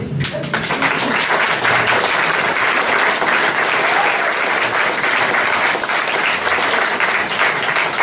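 Audience applauding, a steady, dense clapping.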